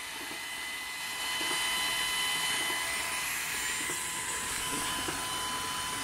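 Small electric water-well drilling rig running steadily: a constant electric motor whine with hiss as the drill works down through sand, swelling slightly about a second in.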